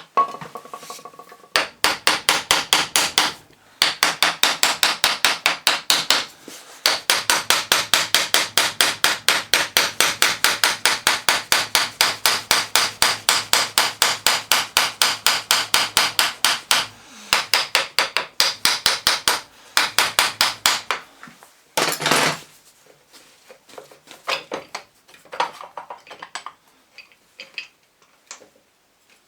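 Ratchet wrench clicking rapidly and evenly, about five or six clicks a second, in several long runs with short pauses, as the starter motor's through bolts are wound out. A loud short scrape or clatter comes near the end, followed by a few light knocks of parts being handled.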